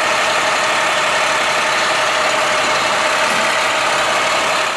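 A motor vehicle engine idling steadily, fading out near the end.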